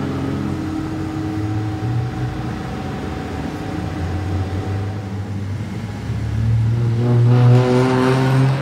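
A motor running with a steady hum, growing louder and rising in pitch over the last two seconds or so.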